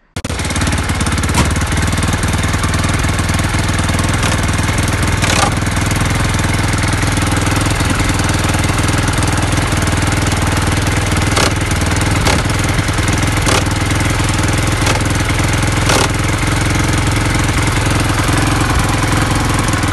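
Quadzilla 450 quad bike's single-cylinder four-stroke engine running steadily, with a few sharp clicks scattered through.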